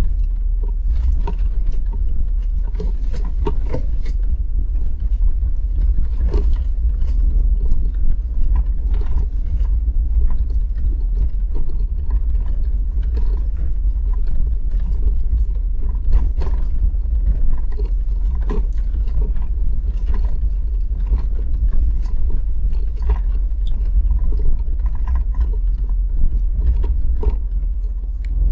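Inside a 4x4 vehicle crawling over rough, rocky track: a steady low engine and road rumble, with frequent knocks and rattles as the vehicle jolts over the bumps.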